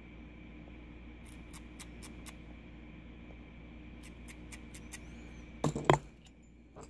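Rapid light clicks, a few to the second, in two short runs: the fire button of a box mod being pressed over and over to pulse a freshly built rebuildable-atomizer coil until it glows. A brief louder sound comes about six seconds in, then one more click.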